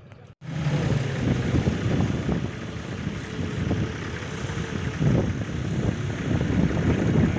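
Toyota Land Cruiser's engine working under load as the 4x4 climbs a steep, loose sand slope. The sound cuts in abruptly about half a second in and runs loud and uneven.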